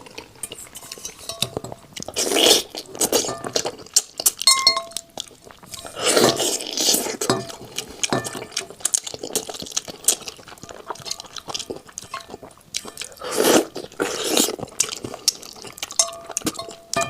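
Eating utensils clinking against a dish, with brief ringing tones from a few of the strikes. Several longer bursts of handling and eating noise come between the clinks.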